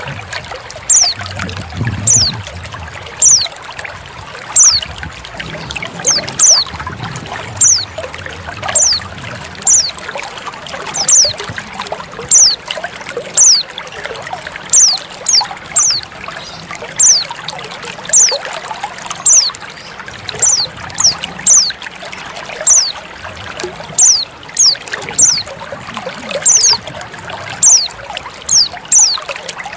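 Female white-eye (pleci) giving short, high, downward-slurred call notes over and over, about one a second and sometimes in quick pairs. Under the calls runs a steady trickle of running water.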